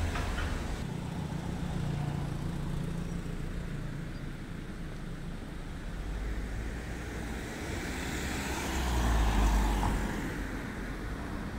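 Town street traffic: a low engine rumble of a car moving slowly past. The rumble swells to its loudest about nine seconds in.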